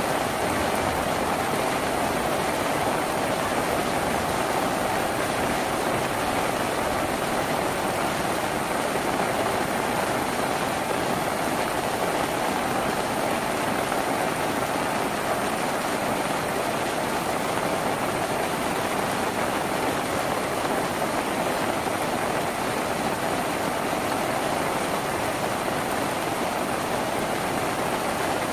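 Steady rain falling on a tin roof, an even, unbroken rush of noise that stays at the same level throughout.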